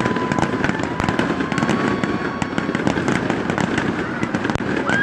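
Fireworks going off in a dense, rapid string of crackling pops, with a steady high whistle over the first couple of seconds.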